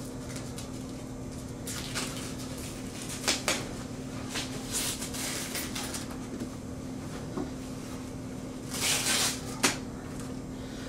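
Protective wrapping and packaging on a new iMac being handled: a series of short rustles and scrapes with a few light knocks, the longest rustle near the end, over a steady low hum.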